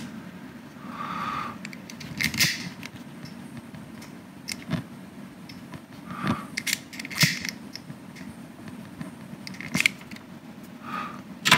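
A hand-held lighter being clicked repeatedly: about half a dozen sharp clicks a couple of seconds apart, with quiet handling of a cable between them.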